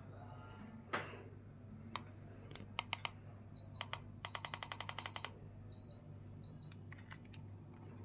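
Gree split air conditioner giving five short high beeps from about three and a half seconds on, the sound such a unit makes when it acknowledges a remote-control command, over a steady low hum. Scattered sharp clicks come earlier, and a quick run of clicks comes among the beeps.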